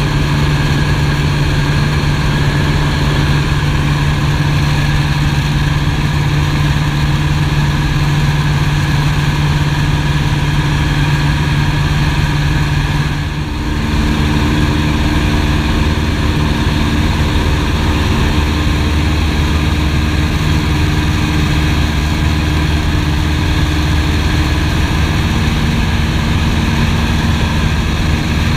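Piper PA-18 Super Cub's piston engine and propeller droning steadily in flight, heard from inside the cockpit. About halfway through the engine note briefly dips and then changes, settling into a lower drone.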